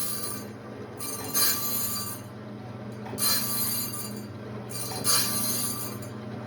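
Automatic sawmill band-blade sharpener running with a steady motor hum. Its grinding wheel makes a short, high, ringing grind on the steel about every two seconds, three times, as it indexes from tooth to tooth.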